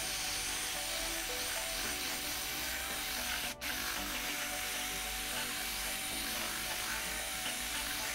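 Drill-driven paddle mixer running steadily, churning drywall mud in a plastic bucket, with a constant motor whine and a brief break about three and a half seconds in.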